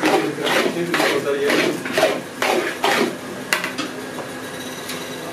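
Metal scraper scraping and stirring thick khoya against the side of a large brass pan, strokes about twice a second. The strokes stop about three and a half seconds in.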